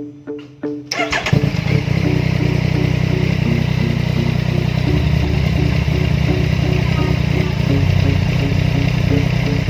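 Yamaha MT-09 Tracer's three-cylinder engine starting about a second in, then idling steadily through an aftermarket muffler.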